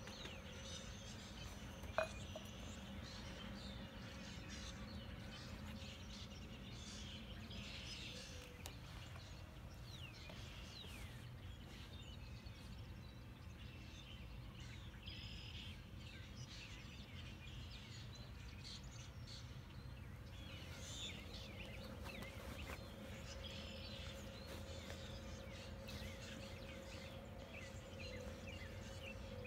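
A faint mix of wild songbirds calling and chirping in scattered short phrases over low outdoor background rumble, with a faint steady hum underneath. A single sharp click comes about two seconds in.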